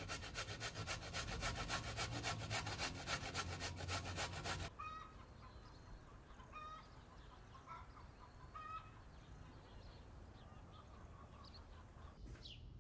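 A carrot being grated on a metal box grater: quick, even scraping strokes that stop sharply about five seconds in. A few faint short bird calls follow.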